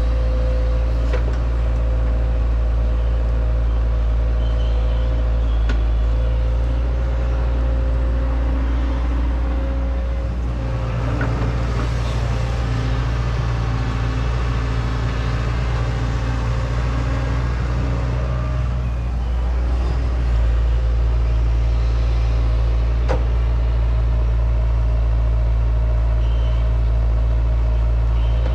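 Excavator's diesel engine running steadily, its note changing and getting busier through the middle stretch as the machine works. A few sharp knocks sound over it.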